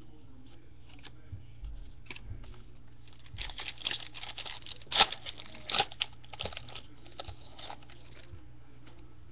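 Trading cards and their packaging being handled: a run of crinkling and rustling starting about three seconds in, with the loudest crackle about halfway through.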